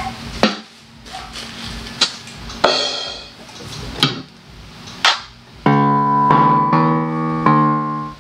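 A few sharp taps, then GL-400 electronic keyboard notes held one after another in its last couple of seconds, each changing pitch after about half a second.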